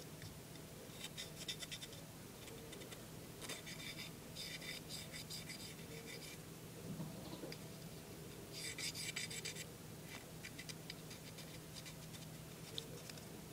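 Cotton swab rubbing along the grooves of a metal pistol slide: faint scratchy strokes in several spells, the longest about four to six seconds in and again around nine seconds, with light ticks between.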